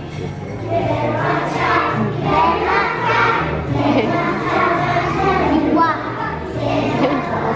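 Young children's choir singing a Christmas song over a steady instrumental accompaniment.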